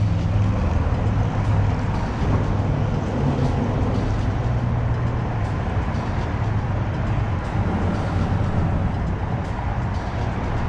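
Wind buffeting the microphone: a steady low rumble with a haze of noise above it.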